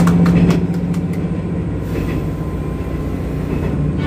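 Running noise of a diesel railcar heard from inside the passenger cabin: a steady rumble and hiss. A few hand claps sound at the start.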